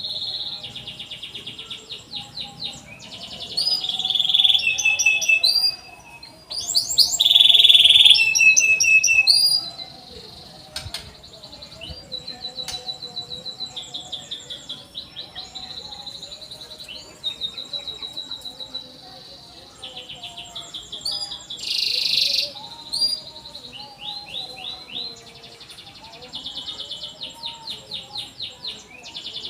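Domestic canary singing a long, continuous song of rapid trills and rolling phrases, each held for a second or two before the next; the loudest passages come about four to nine seconds in and again at about 22 seconds.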